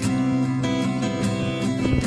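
Background music: held pitched notes over a steady beat.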